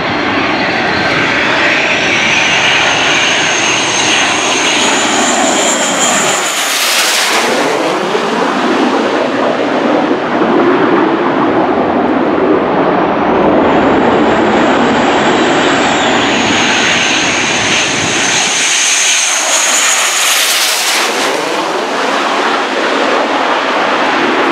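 Blue Angels F/A-18 Hornet jets, twin GE F404 engines, on landing approach with gear down, passing low overhead one after another: a steady jet rumble with a high whine that swells and drops in pitch as each goes by, the first about seven seconds in and the second near twenty seconds in.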